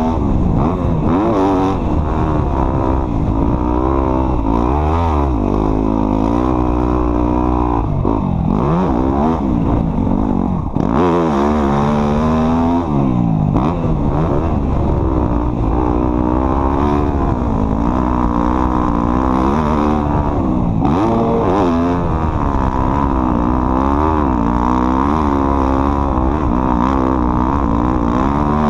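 Off-road vehicle's engine running under load, its pitch rising and falling over and over as the throttle is worked.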